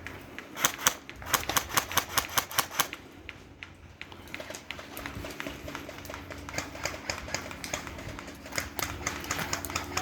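Airsoft guns firing: a string of loud, sharp single shots, about four a second, starting about half a second in and lasting a little over two seconds, then fainter shots scattered through the rest.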